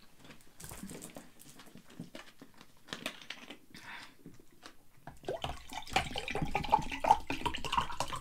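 Water poured from a plastic bottle into a drinking glass, starting about five seconds in, with a pitch that rises as the glass fills. A few light clicks and rustles come before it.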